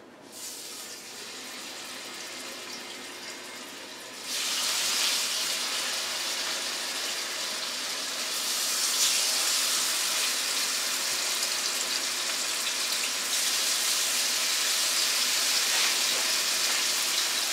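Venison steaks sizzling in hot oil in frying pans as they are laid in one after another. The sizzle jumps much louder about four seconds in and grows a little again around nine seconds, as more meat goes into the pans.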